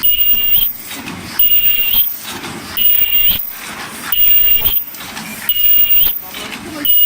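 Open-cam paper cup machine running in production, forming 16 oz double-PE paper cups at about 50 a minute. A loud repeating cycle comes about once every 1.4 seconds: each stroke brings a burst of about half a second with a high, steady whistle-like tone, and quieter machine clatter runs between the bursts.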